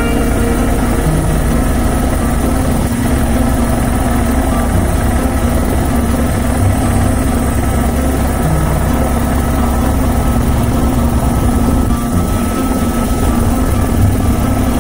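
Helicopter in flight: steady rotor and engine noise.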